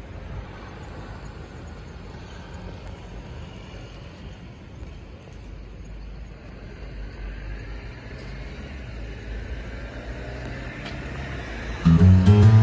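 Low, steady rumble of road traffic in the street. Near the end, strummed acoustic guitar music starts abruptly and much louder.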